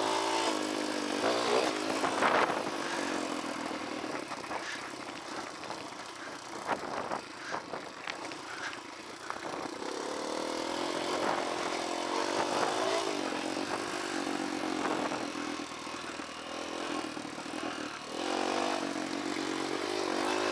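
Kawasaki KLX dirt bike's single-cylinder four-stroke engine running at low revs on a steep downhill trail, its pitch rising and falling with the throttle, with scattered knocks.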